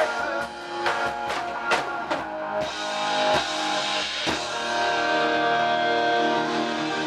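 Live rock band playing: guitars with drum kit hits in the first couple of seconds, then a chord held and ringing over the last few seconds.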